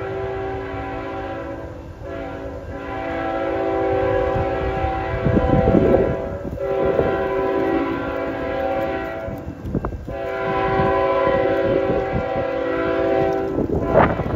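Approaching CN freight locomotive sounding its multi-chime air horn in a series of long blasts with short breaks, over a low rumble. Bursts of wind noise on the microphone come around the middle and near the end.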